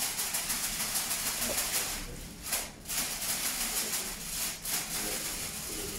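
A steady crackling hiss, dropping out briefly about two and a half seconds in and again near the end.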